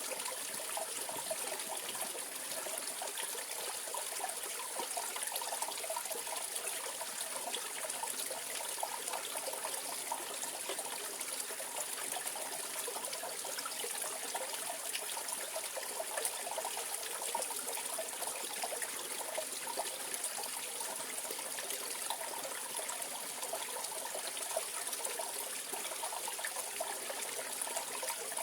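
Mountain valley stream flowing steadily, water trickling and gurgling without a break.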